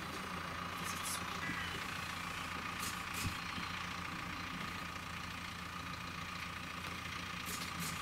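A tractor engine running steadily in the background, with a few short high clicks.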